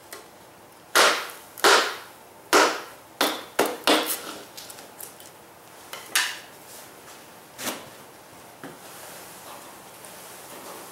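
A wooden bee package knocked down hard on a concrete floor again and again, sharp thumps that jar the bees to the bottom of the cage before they are poured into the hive. Five quick knocks in the first few seconds, then two single ones a little later.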